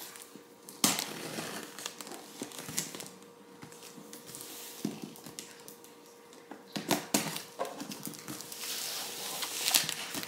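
Packing tape on a cardboard parcel being scratched, jabbed and torn at with a pen, the tape crinkling as it gives. Irregular scratches and sharp tearing sounds, with a loud one about a second in and a longer run of scratching and tearing near the end.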